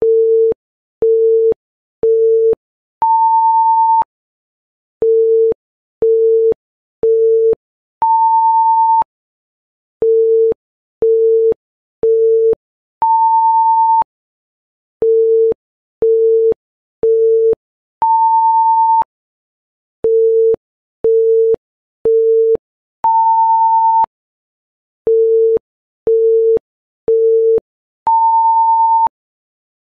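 Electronic countdown timer beeps: three short low beeps a second apart, then one longer beep about an octave higher that marks time up. The pattern repeats every five seconds.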